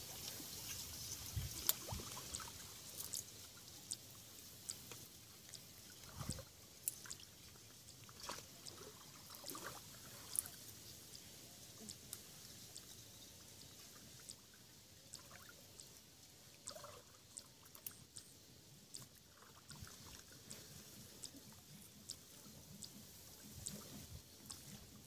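Quiet sloshing and trickling of shallow pond water stirred by people wading and groping by hand along the bank, with scattered small splashes and clicks.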